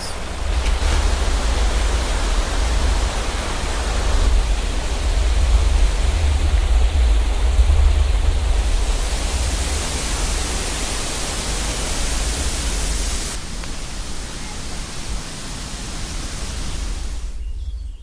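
Waterfalls rushing: a steady roar of falling water with a deep rumble underneath. The sound shifts abruptly a few times as it cuts between different falls, and fades out at the end.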